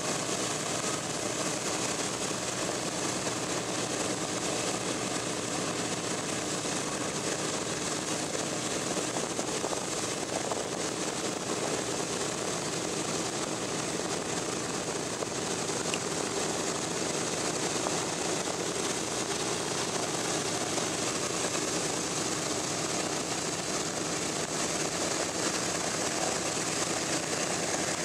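Radial piston engines of a World War II bomber running steadily.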